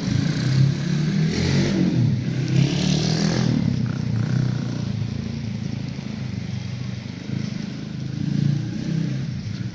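A motor vehicle's engine running, louder over the first three and a half seconds and then steadier.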